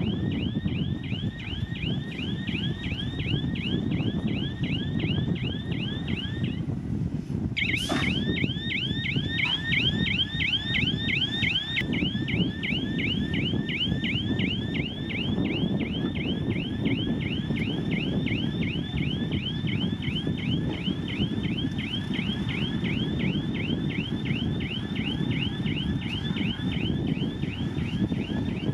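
Heavy diesel earthmoving machinery running steadily, with a rapid repeating high chirping squeal, about three a second, that stops briefly about seven seconds in and then starts again.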